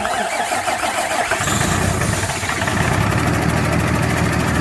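Cummins ISC 8.3 diesel engine cranking on the starter for about a second and a half, then catching and running steadily. It now starts because a replacement fuel pump lets the high-pressure fuel rail build pressure.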